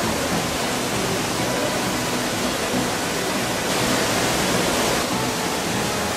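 Steady rushing noise like running water, slightly stronger about four seconds in.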